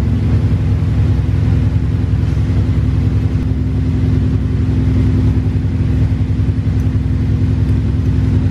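Race car engine idling steadily and loudly, a deep even rumble with a rapid pulse.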